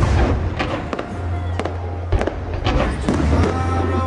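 Fireworks shells bursting in quick succession: a string of sharp cracks and booms, about eight in four seconds, with music playing underneath.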